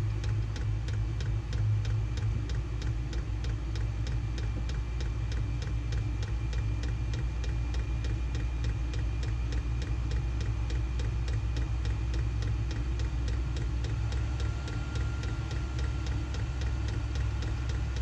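SILVEL diesel air heater running in its warm-up toward full heat: a steady low hum from the blower and burner, with the fuel pump ticking at an even, fast rate.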